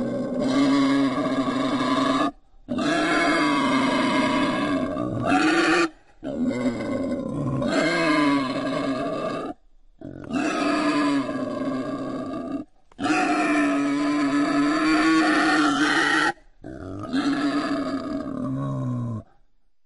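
Wild boar calls: six long, pitched cries, each two to three seconds long and holding a fairly steady tone that bends at the end. Each starts and stops abruptly, with short silent gaps between them.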